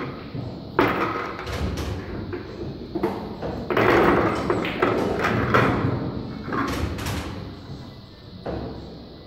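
Pool balls clacking together and knocking against a wooden triangle rack as a full rack of fifteen balls is gathered and packed. The knocks come in an irregular run, thinning out near the end.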